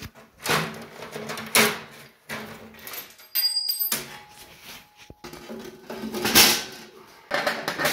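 Aluminium checker-plate floor sheets handled and set down on a steel tube frame: a series of irregular metal clanks and rattles, with a quiet pause about halfway through.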